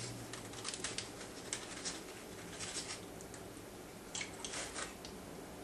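Metal spatula scraping under a baked redfish fillet in a foil-lined pan, lifting the flesh off the skin: a few short rasping scrapes, the loudest pair about four seconds in.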